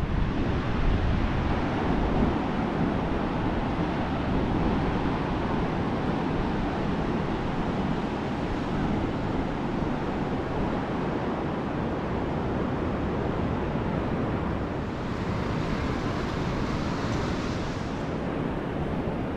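Ocean surf washing steadily on a wide sandy beach, with wind buffeting the microphone. A brighter hiss swells for a few seconds near the end.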